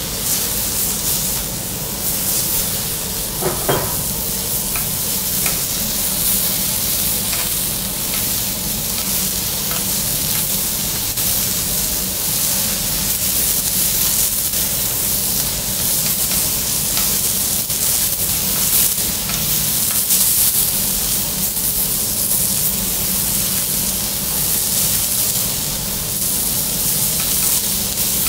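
Food sizzling steadily on a hot teppanyaki iron griddle, with a few light clicks throughout and a brief higher-pitched sound about three and a half seconds in.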